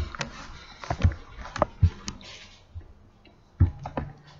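Handling noise on the recording device: a scattered series of short taps, clicks and knocks, with a louder knock about three and a half seconds in.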